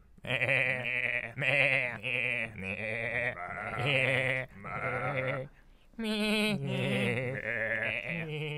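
Sheep bleating: a run of long, quivering baas that overlap one after another, with a short pause about five and a half seconds in.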